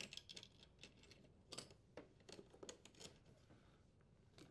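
Faint, scattered clicks and light rattles of a power cord and its strain relief being worked free of a dishwasher's junction box, mostly in the first couple of seconds.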